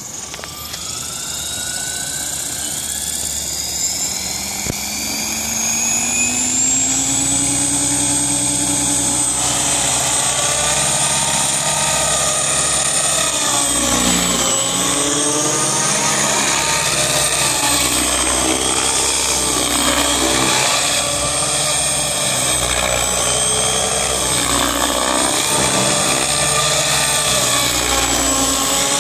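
Electric 700-size RC helicopter spooling up from the ground, its motor and rotor whine rising in pitch over the first several seconds. It then flies, the whine holding steady but dipping and swelling in pitch and loudness as the helicopter manoeuvres and passes overhead.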